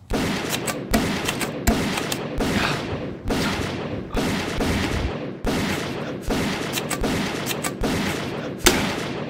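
A rapid string of gunshots, more than a dozen in about nine seconds, with a continuous rumble between them and a sharp, loud shot near the end, cutting off suddenly.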